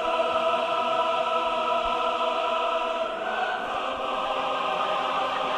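Choral music playing over the venue's speakers: a choir holding sustained chords, shifting to a new chord about three seconds in.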